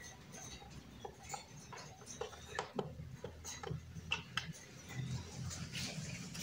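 Irregular light clicks and ticks of hands working at a small solar charge controller, connecting wires to its terminals.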